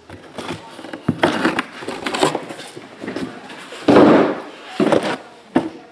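Shrink-wrapped cardboard boxes of trading cards being handled and set down on a table: a few short knocks and rustles, with one louder rustle about four seconds in.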